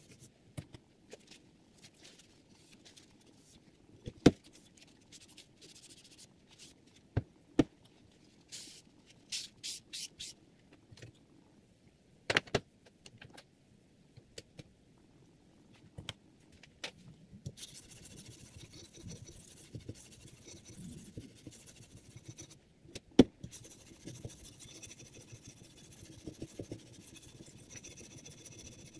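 Hapstone R2 guided-rod knife sharpener in use: sharp clicks and knocks as the clamp and stone holder are handled, and a few short high ringing taps around a third of the way in. From a little past halfway, the sharpening stone scrapes steadily along the clamped blade's edge in repeated strokes.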